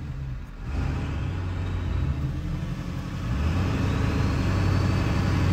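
Pickup truck engines idling at a standstill, heard from inside a truck cab: a steady low rumble that grows gradually louder.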